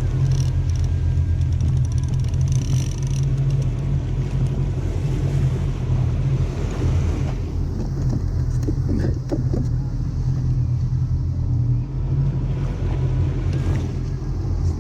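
Boat engine running steadily at trolling speed, a constant low rumble with rushing hiss over it.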